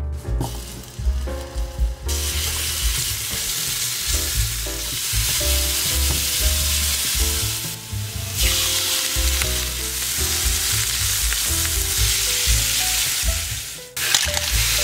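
Minced garlic sizzling in hot olive oil in a stainless steel frying pan, the hiss starting about two seconds in, easing briefly midway and breaking off sharply just before the end before it comes back. Soft background music with a bass line runs underneath.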